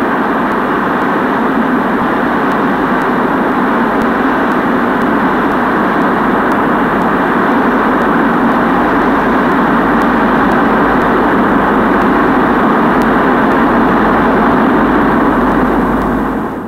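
Steady, dense noise drone of an electronic sound-art soundtrack, engine-like and unbroken, cutting off abruptly at the very end.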